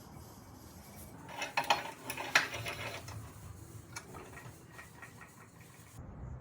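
Metal pieces clinking and knocking together: a burst of sharp clinks about a second and a half in, the loudest near two and a half seconds, then lighter clinks.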